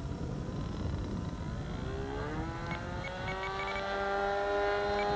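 Engine of a Phoenix Edge 540 RC model plane, fitted with a can muffler, running in flight. About two seconds in its pitch rises, then it holds a steady note, growing louder toward the end.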